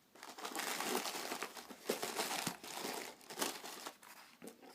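Packing material crinkling and rustling as a knife box is unpacked by hand, with small clicks and taps among the rustle.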